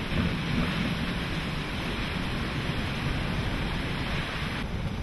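Hurricane-force wind and driving rain rushing steadily, with gusts buffeting the microphone into an uneven low rumble. The hiss drops abruptly near the end.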